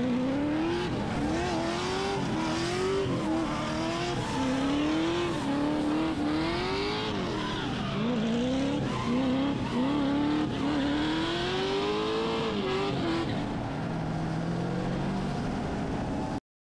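Drift car's engine revving hard in repeated rising climbs that drop off sharply, about once a second, as it slides sideways with tyre squeal. The sound cuts off suddenly near the end.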